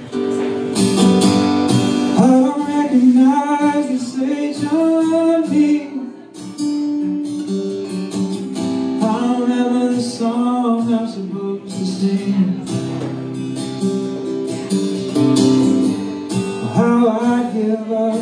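Live band playing a song: a man singing over strummed acoustic guitar and electric guitar, with the vocal coming in about two seconds in.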